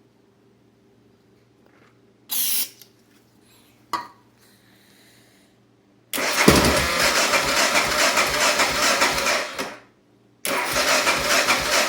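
Electric starter cranking the 1988 Honda NX650's single-cylinder engine for about four seconds, stopping, then cranking again, without the engine catching: a no-start. A short clunk and a click come a few seconds before the cranking begins.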